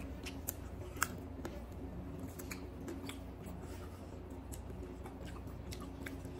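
Close-up eating sounds of a man eating chicken curry and rice with his hand: chewing and small wet clicks, scattered irregularly, over a faint steady hum.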